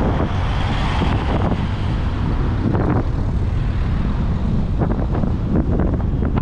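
Car driving slowly, a steady low road and engine rumble, with wind gusting on the microphone a few times.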